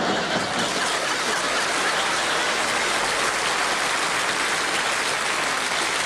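Studio audience applauding, a steady dense clatter of clapping that holds at an even level throughout.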